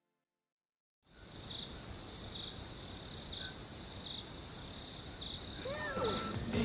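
Crickets chirping: a steady high trill with a regular pulse a little under once a second, starting about a second in after silence. A few short rising-and-falling whistle-like tones come in near the end.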